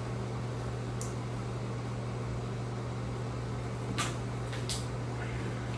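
Steady low mechanical hum, with a few light clicks of small plastic trim parts being handled: one about a second in and two close together about four seconds in.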